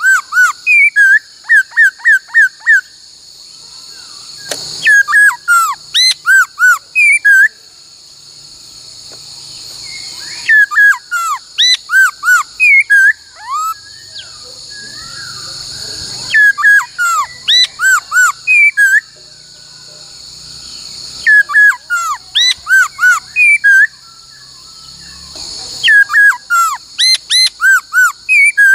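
Laughingthrush (khướu) singing loud whistled phrases of quick repeated notes, a new phrase every five seconds or so. A steady insect chirring runs underneath.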